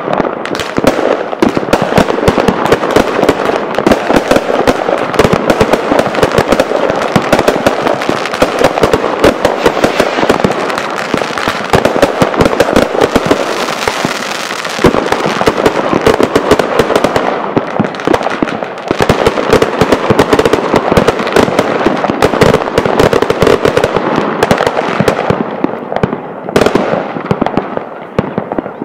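Consumer fireworks going off: a dense, rapid run of bangs and crackles from aerial bursts, thinning out a little near the end.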